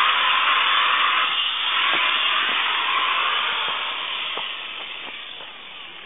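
A loud, steady hiss of rushing air or a running machine that fades away over the last two seconds, with a few faint ticks.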